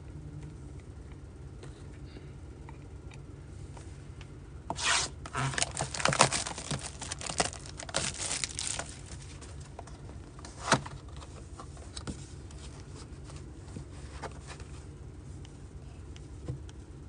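Shrink wrap being torn and crinkled off a sealed trading card box: a flurry of ripping and crackling starting about five seconds in and lasting about four seconds, then a single sharp click and a few light taps.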